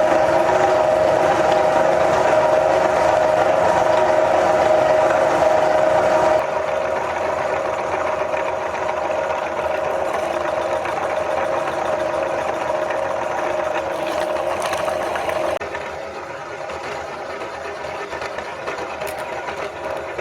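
Electric meat grinder's motor running steadily with a constant whine, dropping in loudness twice.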